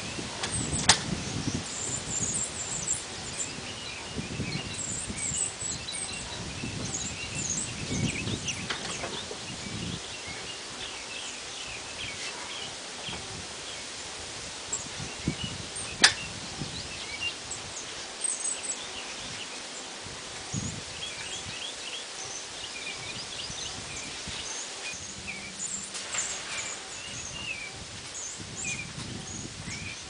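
Small songbirds chirping, many short high calls scattered throughout, with two sharp clicks, one about a second in and one about halfway.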